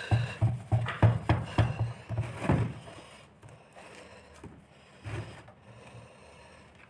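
A cloth rubbed briskly back and forth over the metal soleplate of an electric iron, about three strokes a second, stopping two to three seconds in. After that only a few faint knocks as the iron is handled.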